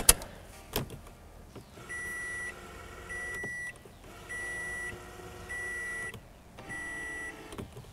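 Power tow mirror's glass-adjustment motor whirring in short runs as the glass tilts, with a steady electronic beep repeating five times, about one every 1.2 seconds.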